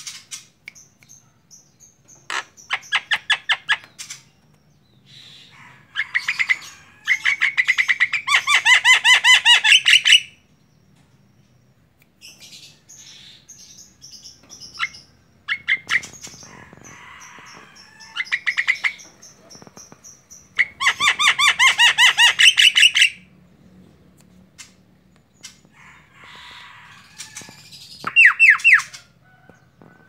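Male Javan myna singing: loud runs of fast repeated notes, the longest about three seconds, broken by quieter stretches of thin, high whistles.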